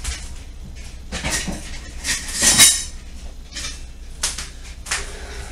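Short, irregular clatters and splashes of hand-washing at a kitchen sink, loudest about two and a half seconds in.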